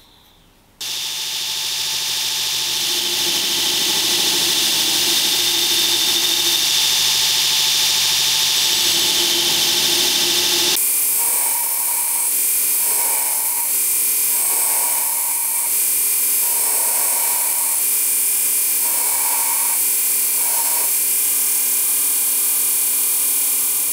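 Belt grinder running with a steel axe head pressed against the abrasive belt, grinding the head down to its marked profile. It starts abruptly about a second in; from about halfway the grinding rises and falls in repeated passes about every two seconds.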